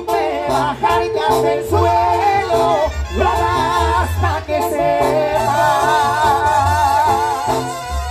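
Live Latin band music from a Mexican regional group: a wavering melody line over a pulsing bass.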